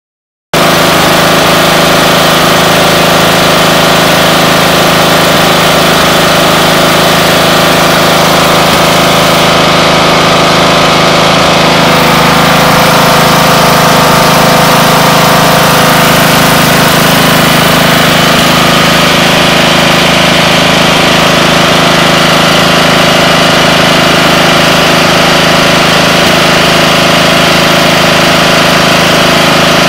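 Craftsman riding mower's Briggs & Stratton 17.5 HP OHV engine running steadily at an even speed.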